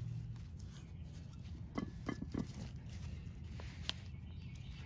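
Short squeaks and clicks of a cloth being worked inside the rubber slide-pin boots of a brake caliper bracket, a cluster about two seconds in and one more near the end, over a low steady hum.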